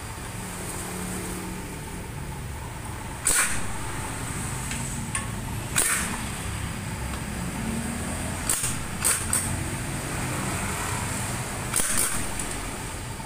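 A handheld tool works the bolts holding the oil pump strainer on the underside of the engine block, in about seven short, sharp bursts, some in quick pairs or threes, over a steady low workshop hum.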